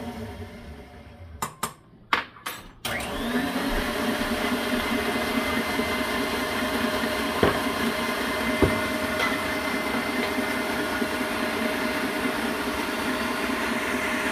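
KitchenAid tilt-head stand mixer whipping egg whites for an Italian meringue: the motor winds down almost to a stop, a few sharp clicks follow, then it spins back up with a brief rising whine and runs steadily. Two single knocks come later.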